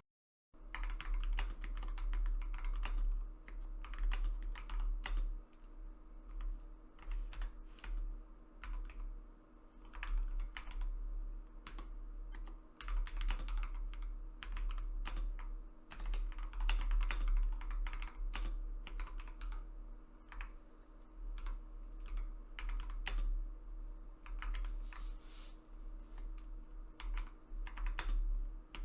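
Typing on an Akko 5075S 75% mechanical keyboard fitted with Akko CS Sakura switches: a steady run of uneven key clicks, soft and gentle in tone. The typing starts about half a second in.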